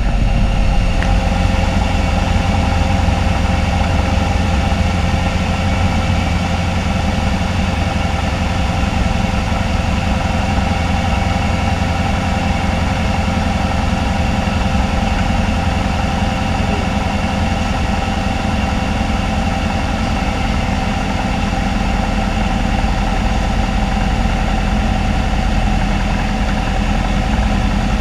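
Alon A2 Aircoupe's four-cylinder engine and propeller droning steadily in flight, heard from inside the cabin.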